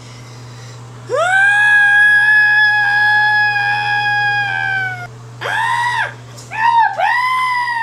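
A high-pitched human voice gives one long held scream, about four seconds, that sags in pitch as it ends. Then come three shorter wails, the last falling away at the end.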